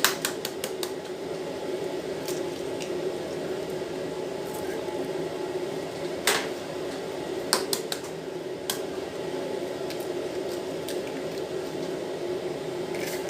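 Eggs going into a bowl of milk, sugar and oil: a few sharp clicks of shell and utensil against the bowl and wet squishing of the liquid, over a steady low hum.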